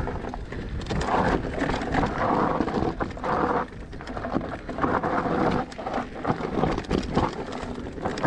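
Electric mountain bike being ridden over rough, rocky trail: tyres on stones and the bike rattling, with irregular knocks and clatter throughout.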